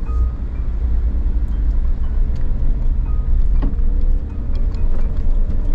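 Suzuki Jimny's four-cylinder engine running at low speed while the car drives slowly over a rough dirt track, heard from inside the cabin as a steady low drone. Scattered clicks, and one louder knock about three and a half seconds in.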